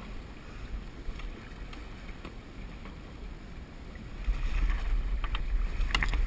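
Wind buffeting the camera microphone and water moving along the boat's side, a low rumble that grows louder about four seconds in. Near the end a few sharp splashes come as a hooked fish thrashes at the landing net.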